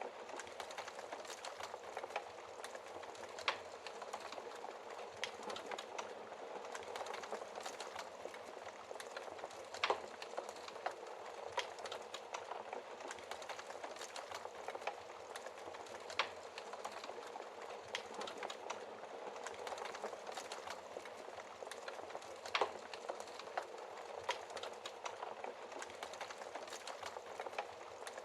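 Wood fire burning in a fireplace: a steady soft hiss with irregular crackles and sharper pops, the loudest of them about 10, 16 and 22 seconds in.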